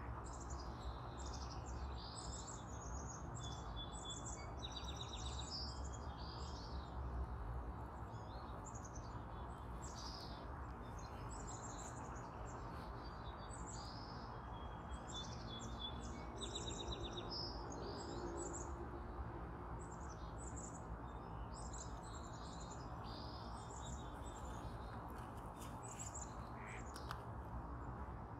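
Small wild birds chirping and trilling throughout in a dense chorus of many short, overlapping calls, with a few rapid trills. A steady low background rumble runs underneath.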